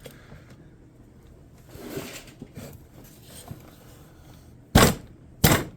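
Tool handling: faint rustling and small clicks, then two loud, sharp knocks near the end, about two-thirds of a second apart.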